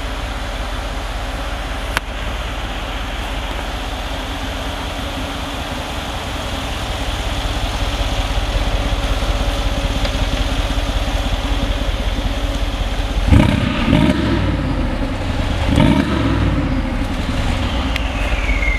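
Brabus-tuned Mercedes G63's twin-turbo V8 idling steadily. It is blipped twice, about thirteen and sixteen seconds in, the pitch rising and falling each time.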